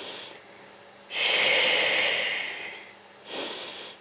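A woman breathing hard through her mouth, close to the microphone, in time with a bodyweight leg-kick exercise. There is a short breath at the start, a long loud breath from about a second in to nearly three seconds, and a shorter breath near the end.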